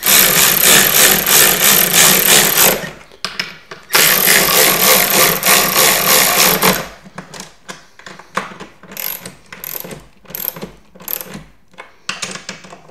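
Ratchet wrench working a bolt on a pinball machine's leg: two spells of fast ratcheting, each about three seconds long, then slower single clicks.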